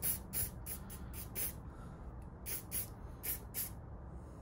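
Aerosol can of HyCote clear lacquer spraying in a series of short bursts, about nine quick puffs of hiss with a brief pause near the middle. The lacquer is being misted onto a small clear plastic window piece.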